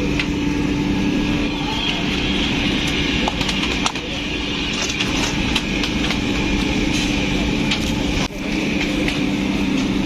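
Steady machine hum over a noisy background, with scattered short clicks and knocks throughout; the sound dips briefly a little after eight seconds in.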